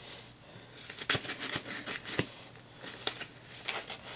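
Cardboard mailing box being handled: scattered scrapes and rustles of card and packaging, with a couple of sharper ticks about one and two seconds in.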